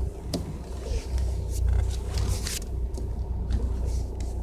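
2015 Ford Mustang's 2.3-litre EcoBoost turbocharged four-cylinder running with a steady low rumble, with a few short hissing noises and clicks, the longest about two seconds in.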